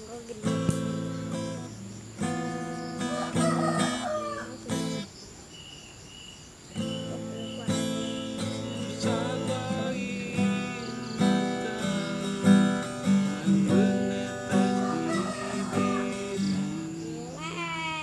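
Acoustic guitar being played, plucked notes and chords ringing out, with a short lull about five seconds in before the playing resumes.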